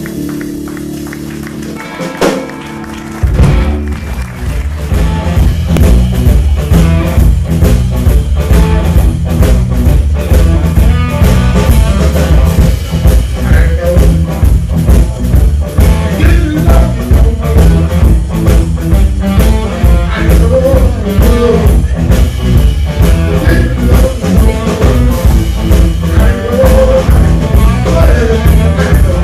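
Live electric blues band playing: drum kit, electric bass and electric guitar, with singing over them. The playing is quieter at first, and the full band with a steady beat comes in about three seconds in.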